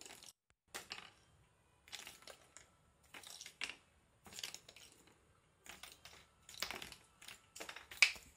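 Cat teaser toy tapping and scraping on a wooden floor, in a string of short rustling taps with a sharper tap near the end the loudest.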